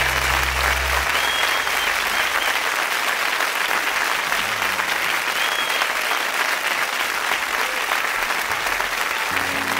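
Audience applauding at the end of a live song, as the song's last low note dies away in the first second or two.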